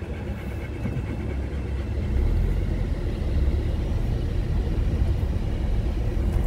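Car crawling over a rough gravel road, heard from inside the cabin: a steady low rumble of tyres and engine that grows louder about two seconds in.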